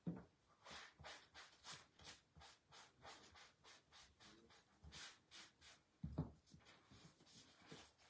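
Faint, rhythmic scrubbing of a damp sponge eraser over a silk-screen transfer on a craft mat, about two or three rubbing strokes a second, washing off wet paste. There is a soft knock at the start and another about six seconds in.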